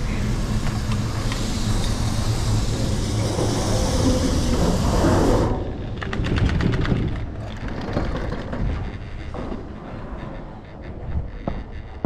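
Doppelmayr high-speed detachable quad chairlift heard from the chair. First comes the steady rumble and whir of the terminal machinery as the chair runs out of the station. This drops away abruptly about five and a half seconds in, leaving the quieter clicking and occasional knocks of the chair riding the haul rope along the line.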